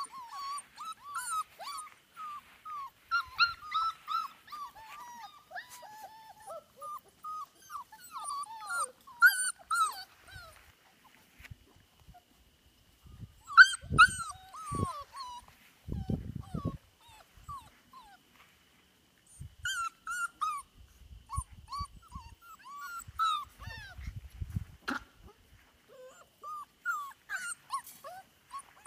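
Five-week-old Australian Labradoodle puppies whimpering and yipping: many short, high-pitched calls that bend in pitch, often overlapping in runs with a few short pauses. Low rumbling bursts come and go in the middle.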